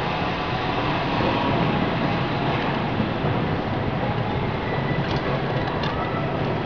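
Steady mechanical rumble of machinery running, with a couple of light clicks about five seconds in.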